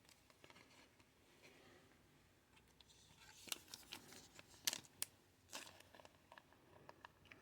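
Faint rustles and light taps of trading cards being handled and flipped through, starting about three seconds in after a near-silent stretch.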